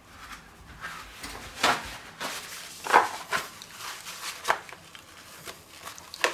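A series of separate knocks and clatters of kitchen handling as a plastic food container is picked up off a wooden cutting board and handled.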